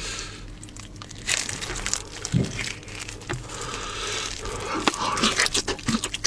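Close-miked eating and handling sounds of hand-held spicy lamb ribs: crinkling and tearing, with scattered sharp clicks and a few soft low thuds.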